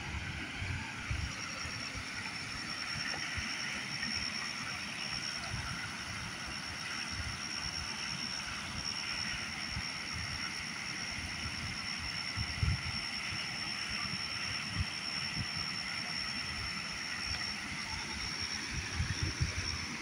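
Steady rush of river water spilling over a low dam and down rapids. A thin, steady high whine runs through it from about a second in, and there are scattered low thumps on the microphone.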